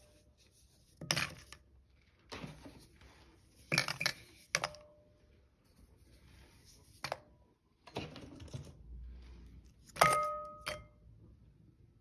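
Decorative pumpkins and pine cones being set into a glass trifle dish: a series of knocks and clinks against the glass. Two of them leave a short ringing tone, the loudest about ten seconds in.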